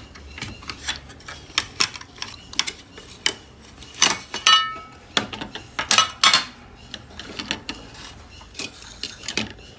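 Irregular metallic clicks and clatter from handling the opened power inverter's metal casing and parts, with one short metallic ring about four and a half seconds in.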